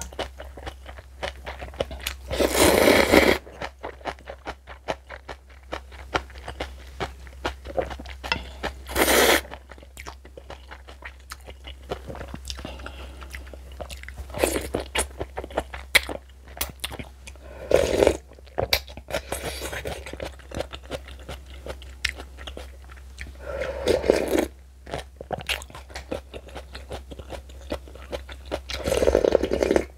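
Close-miked chewing and crunching of spicy napa-cabbage kimchi, with rapid crackling bites. Five louder, noisier bursts about a second long come at intervals of roughly five to nine seconds.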